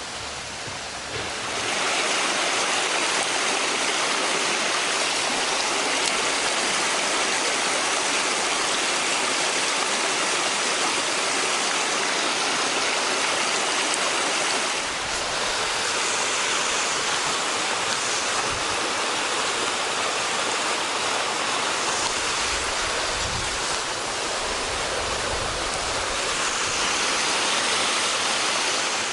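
Mountain river water rushing over rapids, a steady hiss of flowing water that grows louder about a second and a half in.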